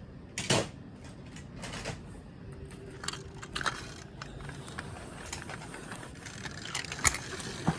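Steady low noise inside a car, with scattered sharp clicks and knocks. The loudest knocks come about half a second in and near the end.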